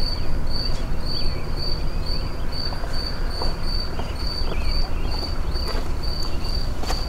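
A cricket chirping steadily, about two high chirps a second, over a constant low rumble, with a few faint shorter chirps scattered through.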